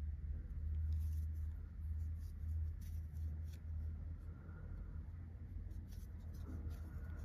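Small crochet hook working through the stitches of a crocheted yarn piece: faint scratchy rustles and light ticks, scattered and irregular, over a low steady hum.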